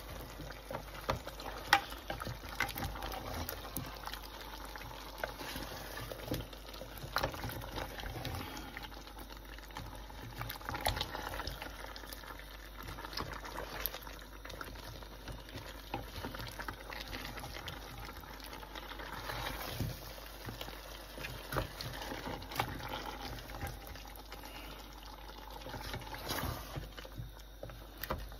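Beef and pumpkin curry bubbling in a large metal pot while a spatula stirs it, with frequent scrapes and knocks against the pot.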